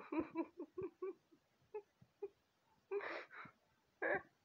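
A woman's wordless, breathy vocal sounds: a quick run of short syllables in the first second, then a few louder gasping breaths.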